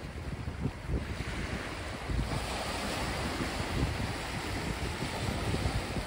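Small waves washing in over the stones and seaweed at the water's edge, with wind buffeting the microphone. About two seconds in, the hiss of the wash grows louder.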